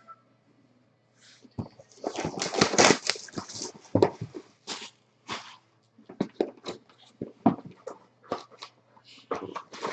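Trading card box packaging being torn open and handled, with a burst of crinkling, ripping wrapper about two seconds in, then scattered sharp clicks and crackles of cardboard and plastic.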